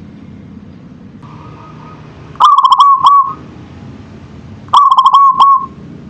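Zebra dove (perkutut) cooing: two loud phrases a couple of seconds apart, each a quick run of clipped notes ending in a drawn-out note.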